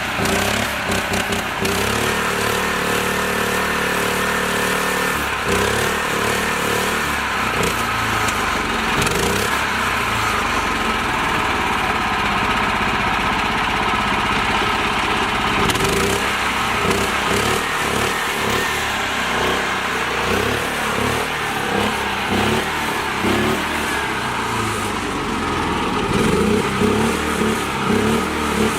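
Tractor engine running continuously.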